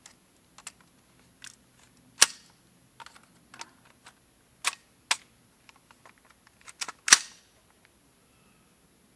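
Sharp metallic clicks and clacks from a 9mm AR-15 carbine's action and magazine being worked by hand to clear a failure to feed. The two loudest clacks come about two seconds in and about seven seconds in.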